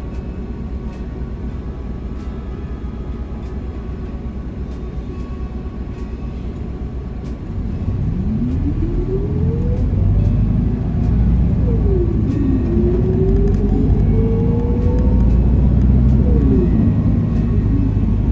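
Inside a city bus: the engine rumbles at low speed, then about seven seconds in it pulls away and gets louder, with a drivetrain whine rising steadily in pitch that drops and climbs again twice as it accelerates.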